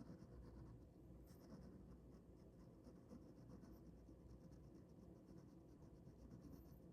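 Ballpoint pen scratching faintly on paper in quick, repeated short strokes while drawing.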